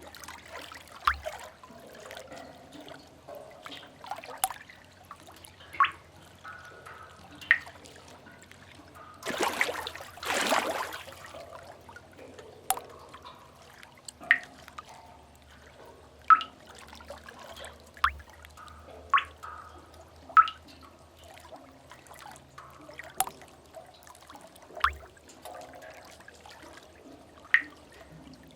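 Water drops falling irregularly into water, a clear plink every second or two. About nine seconds in, a burst of splashing water surges and dies away over about two seconds. Faint low rumble beneath.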